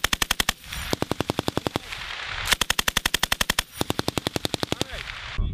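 M240L 7.62 mm belt-fed machine gun firing in short bursts of about a second each, at roughly ten rounds a second: one burst ending just after the start, then three more separated by brief pauses.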